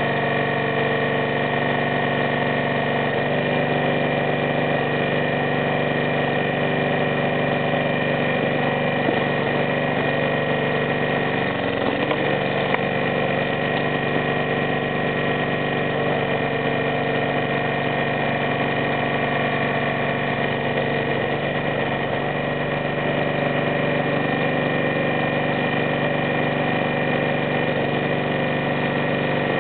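Small 159 cc four-stroke petrol engine of a hydraulic log splitter running steadily, powering the hydraulic pump while the wedge splits a log. Its note dips briefly about twelve seconds in.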